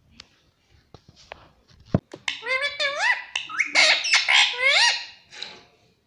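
Rose-ringed parakeet giving a quick run of loud, squawky calls that slide up and down in pitch, starting about two seconds in after a sharp click.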